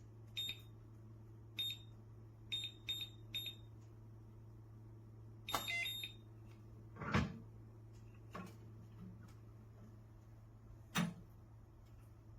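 Electronic keypad on a steel security safe beeping: six short single beeps as keys are pressed, then a longer run of beeps. After that come three dull clunks a second or more apart.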